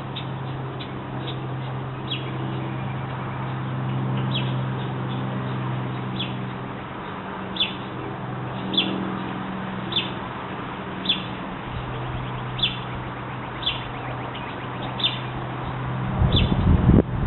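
Baby birds chirping: short, high peeps, roughly one a second, over a steady low hum. Near the end a loud low rumbling bump.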